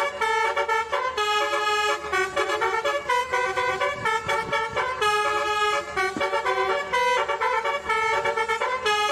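Bus 'basuri' multi-tone electric horn playing a melody: a fast run of short notes that step up and down in pitch, with a few longer held notes in between.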